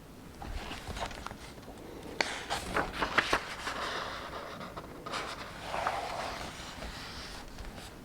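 Paper rustling as a book page is handled and turned, with a few crisp snaps of paper in the middle.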